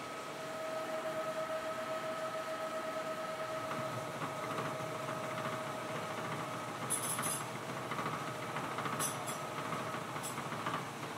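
Gear hobbing machine cutting the teeth of a motorcycle sprocket, its hob turning under a flood of cutting oil. A steady mechanical whine fades about halfway through, over a rattling running noise, with a few sharp ticks in the second half.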